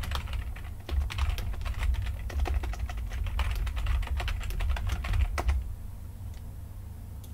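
Typing on a computer keyboard: a quick, dense run of keystrokes that thins to a few scattered clicks after about five and a half seconds.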